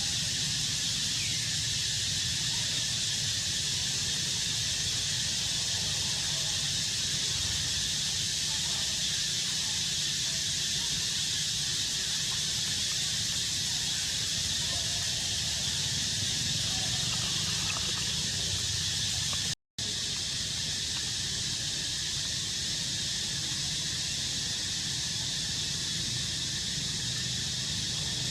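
Steady high-pitched outdoor hiss with a low hum beneath it, cut by a brief dropout about two-thirds of the way through.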